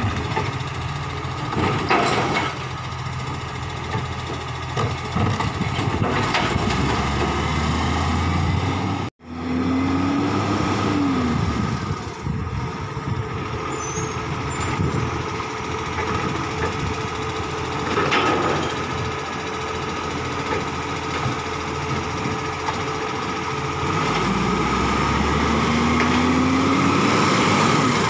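Automated side-loader garbage truck working: the diesel engine runs steadily while the hydraulic bin-lifting arm operates. Twice a whine rises in pitch and then falls away as the arm cycles, and there are two short sharp bursts of noise.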